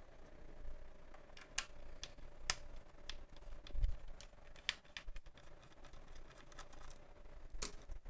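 Scattered sharp clicks and light knocks as hands handle a laptop's chassis, with a soft low thump about four seconds in, over a faint steady hum.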